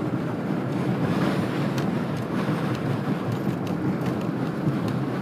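Wind buffeting the microphone: a steady, low rushing noise that rises and falls a little, with no pitch to it.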